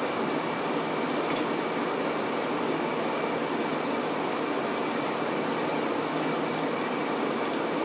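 Steady, even rushing background noise with no change in level, with a faint click about a second and a half in and another near the end.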